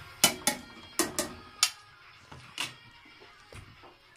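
A metal spoon clinking against a steel cooking pot and a serving plate as cooked saag is scooped out: about six sharp, ringing clinks in the first three seconds. Faint music plays underneath.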